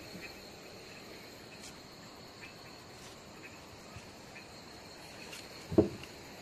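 Crickets chirring steadily at a high pitch, with one short loud knock near the end.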